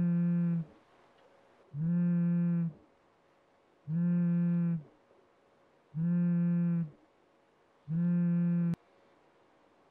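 Smartphone on a desk vibrating with an incoming call: five steady buzzes of about a second each, two seconds apart. The last buzz is cut off with a tap as the call is answered.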